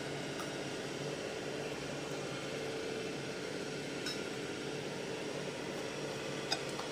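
Steady machine noise from construction work below the house, where asphalt is being broken up, running as an even hum. A spoon clinks lightly on a bowl a couple of times.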